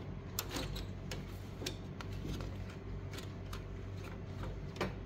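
Plastic clicks and knocks from a 278A toner cartridge being gripped and worked loose in the cartridge bay of an HP LaserJet Pro M1536dnf laser printer, with about ten scattered clicks, the sharpest about half a second in and near the end. A steady low hum runs underneath.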